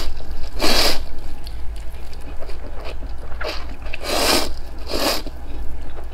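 Wet noodle slurping: a person sucks in mouthfuls of noodles from broth in a few loud, hissy slurps, about half a second in and again around four and five seconds, with quieter chewing between.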